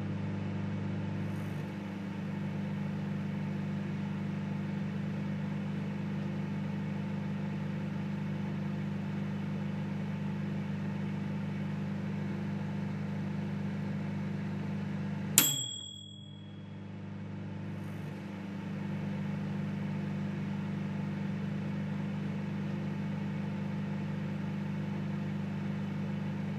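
Microwave oven running with a steady low hum. About halfway through, one sharp click with a brief high ring; the hum drops for a couple of seconds, then comes back.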